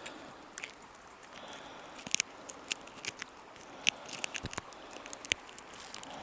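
Irregular sharp clicks and light rustling of handling close to the microphone, scattered unevenly and busiest from about two seconds in.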